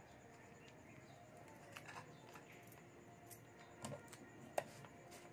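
Faint rustling and light clicks of chopped okra pieces being pressed into a small jar by hand. Then the jar's red plastic lid is screwed on, with one sharp click about four and a half seconds in.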